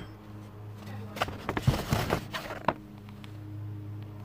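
Handling noise of a sheet of paper and a small rubber eraser held right at the microphone: a cluster of rustles and light taps in the middle, over a steady low hum.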